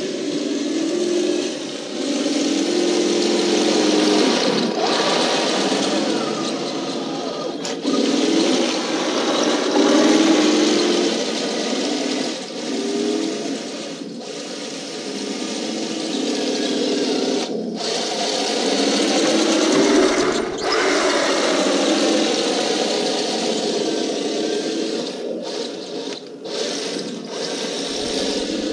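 Radio-controlled Walker Bulldog model tank driving across a lawn, its motors and gearboxes whining steadily, the pitch rising and falling again and again as it speeds up, slows and turns.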